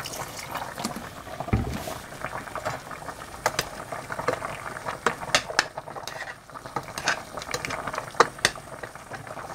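Red chicken-and-beef-intestine stew bubbling at a boil in a stainless steel stockpot. A metal ladle stirs it, clinking sharply against the pot several times in the second half, with a dull thump about a second and a half in.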